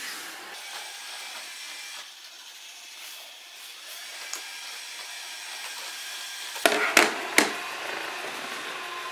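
Steady whirring hiss of a robot vacuum cleaner. About seven seconds in, it is broken by three sharp bangs in quick succession.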